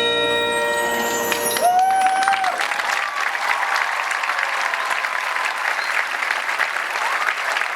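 A marching band's final held chord rings out and fades over the first second and a half, then the crowd applauds and cheers, with one loud cheer about two seconds in.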